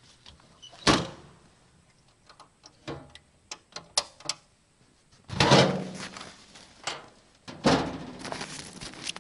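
A hinged seat lid bangs shut on a homemade snowmobile's metal storage box about a second in, followed by a few light clicks and knocks. Then come two loud crunching steps in packed snow.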